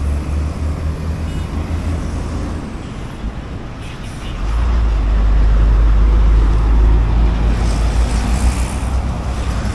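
Road traffic on an expressway: vehicles passing steadily, with a louder, heavier low rumble as a vehicle goes close by from about halfway through.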